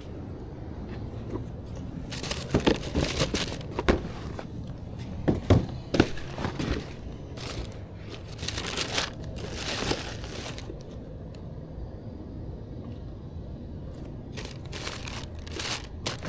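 Paper and packaging crinkling and rustling as sneakers are handled out of their box, in irregular bursts from about two seconds in to about eleven, and again briefly near the end.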